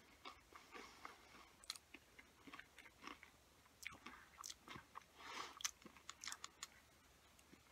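Faint close-up chewing of a mouthful of breaded chicken tender: soft irregular mouth clicks and smacks that die away near the end.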